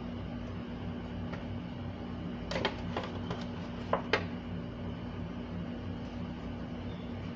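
Steady low mechanical hum, with a few sharp clicks and knocks about two and a half seconds in and again twice near four seconds.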